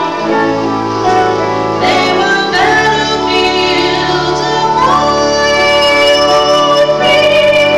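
A woman soloist singing a sacred song, holding long notes and sliding up into them, over sustained instrumental accompaniment.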